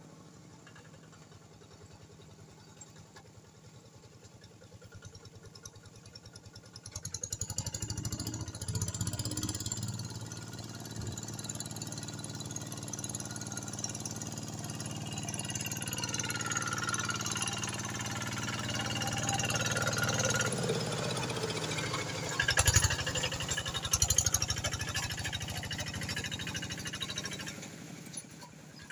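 Quick G1000 two-wheel hand tractor's single-cylinder diesel engine chugging as it drags a leveller through a flooded rice paddy. Faint at first, it gets louder about seven seconds in as the tractor comes closer, with two loud knocks a couple of seconds apart near the end before it drops away.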